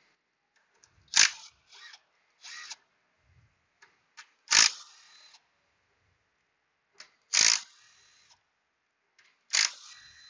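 Four sharp metallic clicks about three seconds apart, each followed by a short rattle: hand tools working on the engine's 8 mm bolts.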